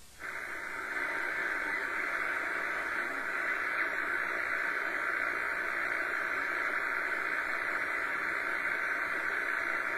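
Realistic DX-200 shortwave receiver putting out steady static hiss through its speaker as a band is tuned, with no station coming through: the sign of very poor HF band conditions. The hiss cuts in suddenly at the start.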